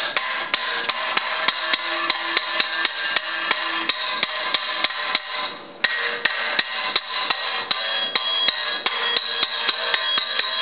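Rapid hammer blows, about four a second, on the aluminum tube of a Honda CRF450 frame, each one sharp with a faint metallic ring. The blows are knocking out the cut-out Y section of the frame, which is still held by a last uncut strip of metal. There is a short break in the blows just before six seconds in.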